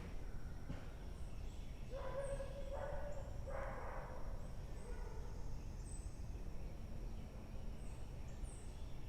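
An animal calling twice outdoors, two held, even-pitched calls about two and three and a half seconds in, over a steady low background hum, with a few faint high bird chirps.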